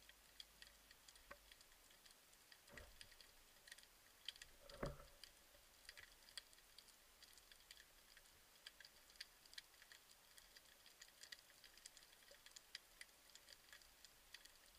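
Near silence underwater: faint scattered clicks and crackles, with two soft dull knocks about three and five seconds in, the second louder.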